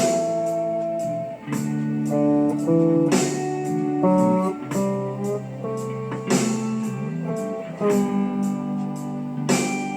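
Lap steel guitar played with a slide: single notes and chords ring and change every second or so, some gliding in pitch, with a faint steady ticking beat behind.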